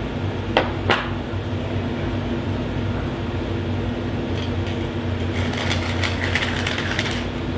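Pepper mill grinding for about two seconds near the end, over a steady low mechanical hum; two light clicks sound about half a second and a second in.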